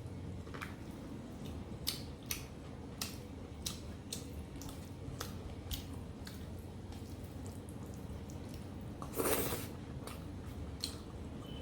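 Close-up wet eating sounds of mutton curry and rice being chewed: a string of small wet clicks and lip smacks, with one louder squelchy smack about nine seconds in.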